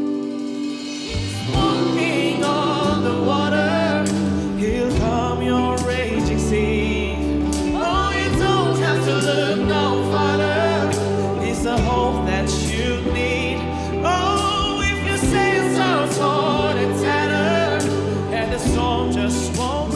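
Worship song with singing over a band: bass and drums come in about a second in and keep a steady beat under the voices.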